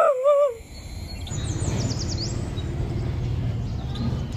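Morning ambience: a bird chirps a quick run of about six falling notes a little over a second in, over a steady low rumble.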